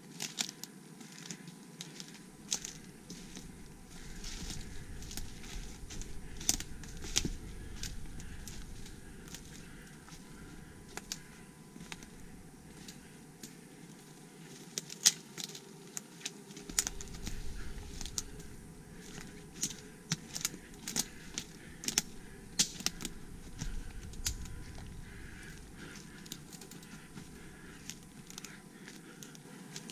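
Footsteps crunching and crackling over the rocky forest floor: irregular sharp crackles and snaps, with a low rumble on the microphone at times.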